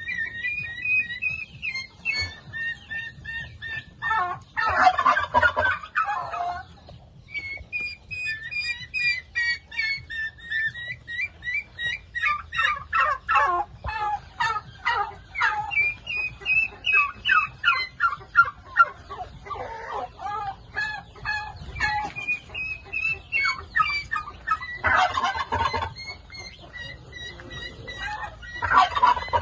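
Domestic turkeys gobbling in several short rattling bursts over a steady stream of high, quick chirping calls from the flock.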